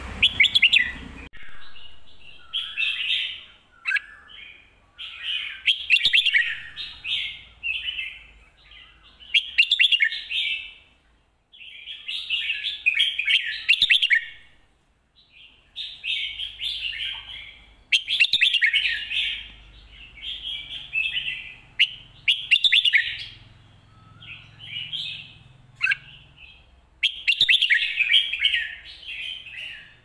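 Red-whiskered bulbul singing: phrase after phrase of quick, warbling song, each a second or two long, with short pauses between.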